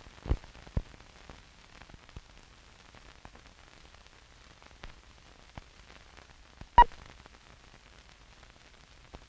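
Faint hiss and scattered crackles and pops from a worn 16 mm film soundtrack running through the head leader. About seven seconds in, one very short, loud high beep: the countdown leader's sync 'two-pop'.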